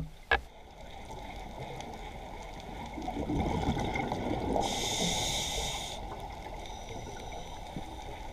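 Steady underwater noise heard through a camera housing on a scuba dive, with a diver's regulator hissing once on an inhale, about a second long, midway through.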